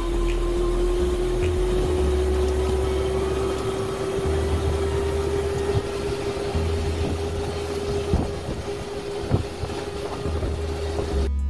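Steady hum of a small motor, its pitch creeping slightly upward, with uneven low wind rumble on the microphone and a couple of faint knocks; it cuts off suddenly near the end.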